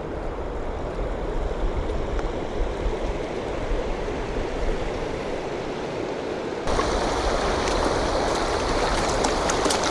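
A stream rushing steadily. About two-thirds of the way through, it abruptly becomes brighter and a little louder.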